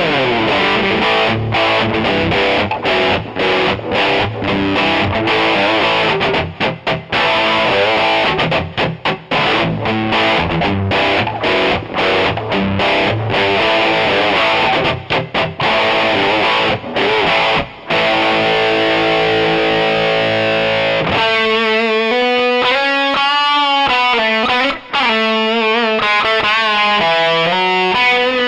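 Electric guitar played through the takky drive2 extreme drive effect, heavily distorted. It plays chunky rhythmic chords with short stops, then about 21 seconds in switches to a single-note lead line with bends and vibrato.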